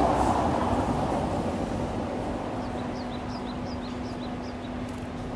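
Street traffic noise: a vehicle passing, loudest in the first second, over a steady hum. About three seconds in comes a quick run of short, high, falling chirps.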